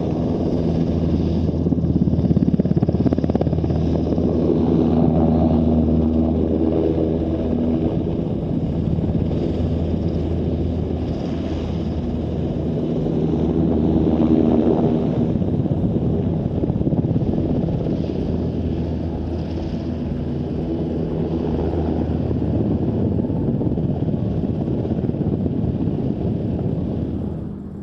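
NH-90 twin-turboshaft helicopter's rotor and turbines running steadily through its flying display, a low droning hum that swells and fades slowly as it manoeuvres.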